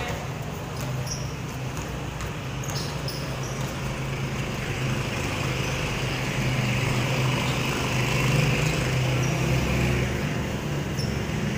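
A motor vehicle's engine running steadily with a low rumble, growing louder toward the middle and easing off near the end, with a few faint knocks, likely basketball bounces, over it.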